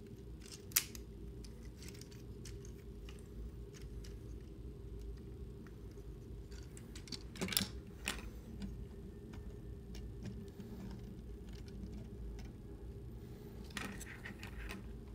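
Faint clicks and taps of a plastic Transformers action figure being handled and stood on a tabletop, with a sharp click about a second in and a small cluster of clicks about halfway through, over a low steady hum.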